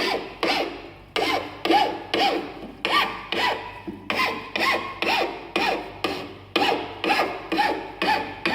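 Hand file rasping over the freshly sawn end of an aluminium fork steerer tube to smooth the cut edge: even back-and-forth strokes, about two a second, each with a short squeal of metal on metal.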